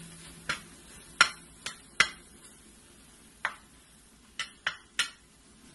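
A spatula stirring thick masala in a metal pot, knocking and scraping against its sides and bottom. There are about eight sharp clacks at uneven intervals, with quiet stretches between them.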